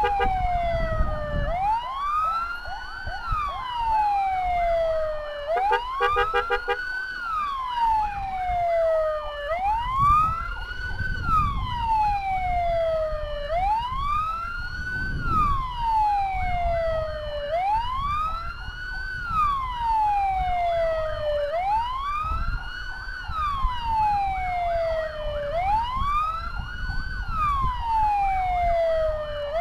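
Electronic emergency siren wailing, sweeping quickly up and then falling slowly, about once every four seconds, over steady road rumble. About six seconds in, a brief rapid pulsing tone cuts in.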